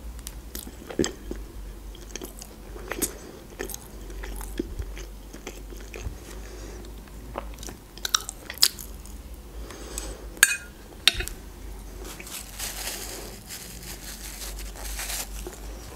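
Close-miked chewing and wet mouth sounds of a person eating fried chicken livers with onions, with occasional sharp clicks of a fork on a plate. Near the end, a paper napkin rustles against the mouth.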